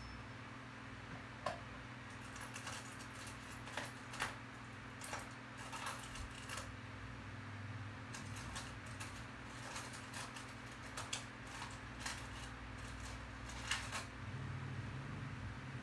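Irregular light clicks and taps, a dozen or so at uneven intervals, over a steady low hum.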